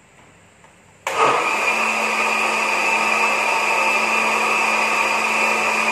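Small electric blender switched on about a second in, running steadily at an even pitch as it grinds spices into a fine paste.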